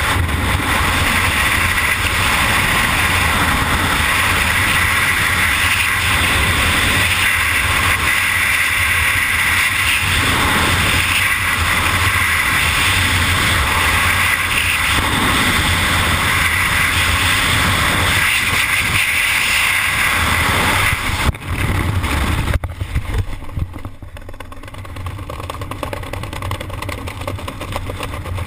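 Loud, steady rush of freefall wind on a skydiver's camera. About 21 seconds in the parachute opens, with two sharp breaks in the sound, and the wind drops to a quieter rush under the open canopy.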